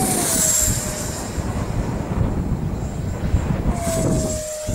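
F-35 fighter jet flying past, its engine a deep rumble with a whine that drops in pitch as it passes during the first second. A steady whine comes in again near the end.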